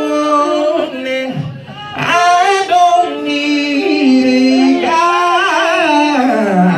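Voices singing long held notes with some vibrato over electronic keyboard accompaniment.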